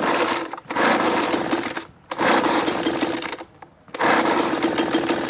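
A two-stroke leaf blower engine being pull-started on a freshly refitted, dirty carburetor: it fires and sputters in about four short bursts, each dying out again without the engine staying running. The idle is set too low to keep it going.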